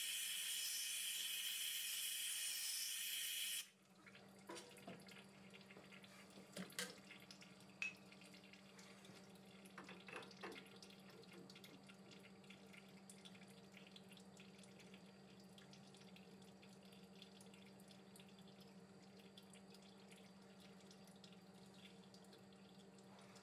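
Cutting oil hissing steadily as it streams from the lathe's coolant hose, cutting off suddenly about four seconds in. After that there is only a faint low hum and a few soft clicks as a thread gauge is tried on the threaded part.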